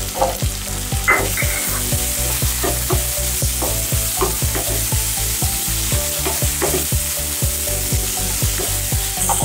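Chopped tomatoes and onions sizzling in hot oil in a kadai while a spatula stirs them, its strokes scraping against the pan a few times a second over a steady sizzle.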